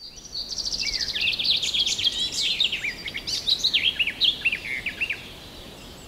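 Songbirds singing: a fast, high trill followed by quick chirps and sweeping notes, trailing off about five seconds in.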